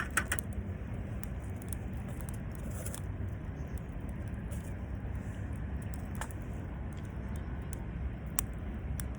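Campfire crackling, with a few sharp pops (several near the start, then single ones further on) over a steady low rumble.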